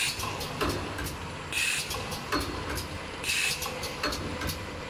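Automatic glue bottle filling, capping and labeling machine line running, with a steady low hum. A sharp hiss, typical of pneumatic cylinders venting air, comes about every second and a half, with light clicks and clacks between the hisses as the machine cycles.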